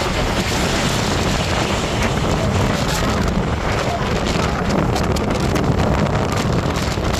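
Strong storm wind blasting across the microphone: a loud, steady rush of noise with crackling gusts, with the wash of rough water beneath it.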